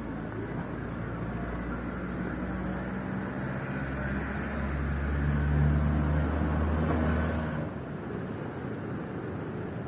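A motor engine hum that grows louder, is loudest about two thirds of the way through, then drops away about eight seconds in, like a vehicle passing.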